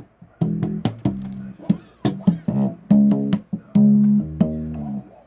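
Bass guitar played solo: a quick riff of sharply plucked single notes, a few held for about half a second, stopping shortly before the end.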